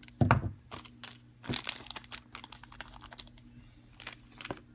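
Pokémon trading-card booster pack wrapper being torn open and crinkled in the hands: irregular crackles and rustles, with a dull thump just after the start and further bursts of crinkling about a second and a half in and near the end.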